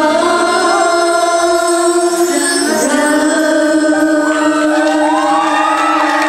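Female idol group singing live into handheld microphones over a pop backing track, holding long notes. The beat drops out about two seconds in, leaving the held voices and sustained accompaniment.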